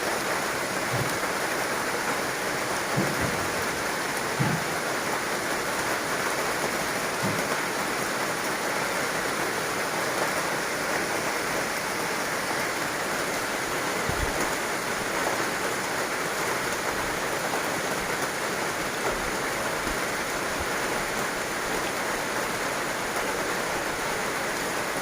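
Heavy rain falling steadily, a dense even hiss, with a few soft low thuds in the first half.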